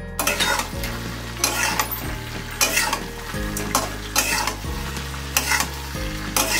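Metal spatula stirring fried cauliflower through a thick sauce in a metal kadai over a gas flame: repeated irregular scraping strokes with sizzling underneath.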